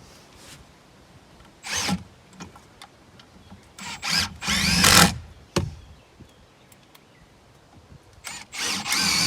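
Power drill driving screws into the wood framing in several short bursts of a second or less, each a brief whine, with quiet gaps between.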